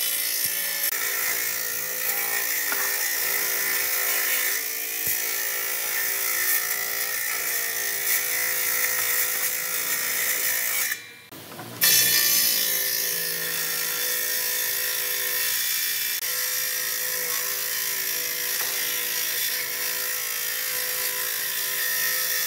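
Industrial table saw ripping a weathered reclaimed timber lengthwise, the blade running steadily through the wood. The sound drops out briefly about eleven seconds in, then resumes with the saw still cutting.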